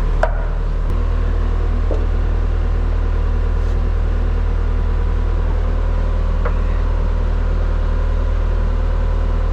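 ASV SR-80 skid steer's diesel engine running at a steady idle, with a short click just after the start.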